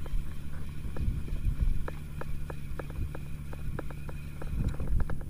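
Small spinning reel being cranked to bring in a hooked threadfin bream on a bent rod, ticking about four times a second. Under it runs the steady low hum of the boat's engine.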